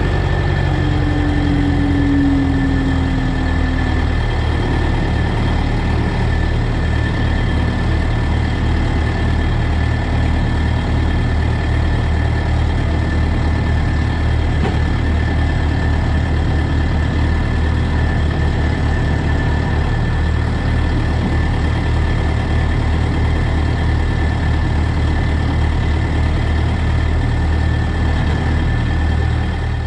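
Engine idling steadily, then shut off abruptly at the very end.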